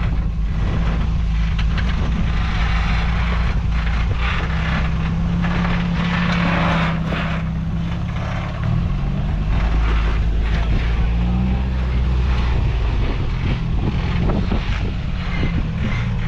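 Off-road truck engine running at low revs as it crawls slowly down over rocks, its pitch shifting about halfway through, with irregular crunches and scrapes from the tyres on rock.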